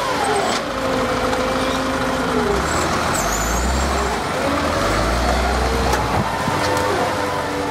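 Rear-loader garbage truck's diesel engine: the revs fall at the start, hold, dip again about two and a half seconds in, then rise from about four and a half seconds in as the truck pulls away, and hold steady.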